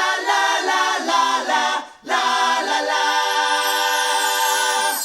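Multi-part a cappella vocal harmony opening a rock song, with no instruments: a short sung phrase, a brief break about two seconds in, then one long held chord.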